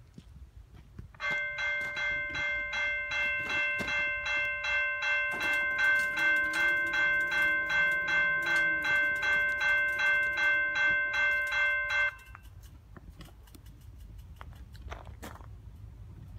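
Railroad grade-crossing warning bell ringing in even, rapid strokes, about two a second, starting about a second in and cutting off abruptly about twelve seconds in. The crossing is activated, warning of an approaching train.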